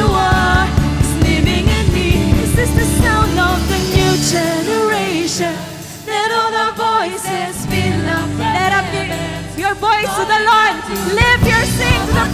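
Live contemporary worship music: a band with singers. The bass and drums drop out for a few seconds about a third of the way in, leaving the voices and keys, then the full band comes back in.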